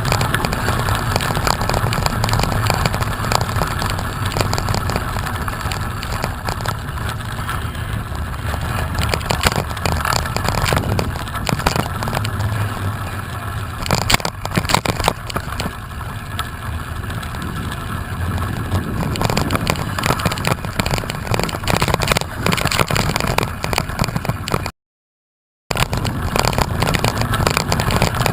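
Steady wind and road noise on a moving camera's microphone, with a few clicks midway. The sound cuts out completely for about a second near the end.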